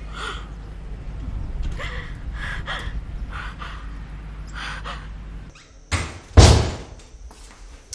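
A woman sobbing in short, gasping bursts over a low rumble. About six seconds in, a door is shut: a quick knock, then a loud slam.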